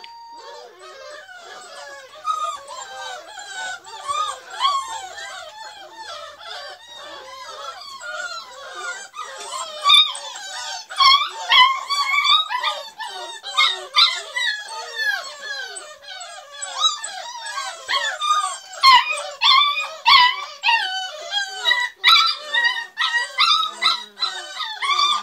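A litter of beagle puppies whining and yelping together, many high, wavering cries overlapping without pause, getting louder about ten seconds in.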